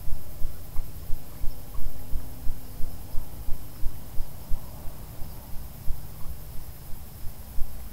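Steady run of low thumps, about three a second, with faint insect chirping behind.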